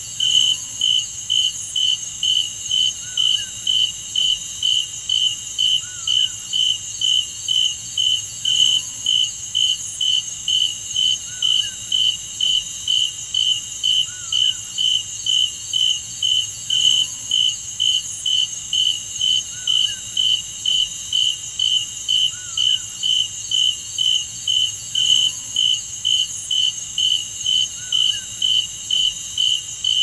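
Night insect chorus: a cricket-like insect chirping in a steady rhythm of about two chirps a second over a continuous high-pitched insect buzz, with a faint short rising-and-falling call repeating every few seconds.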